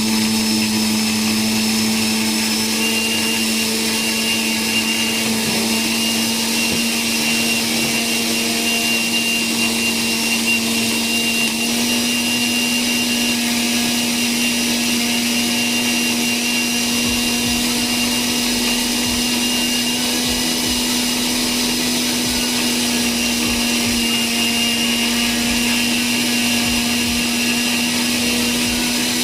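Prestige mixer grinder's motor running steadily on a test run with newly fitted carbon brushes: a loud, even hum with a strong low tone, its pitch edging up slightly about twelve seconds in.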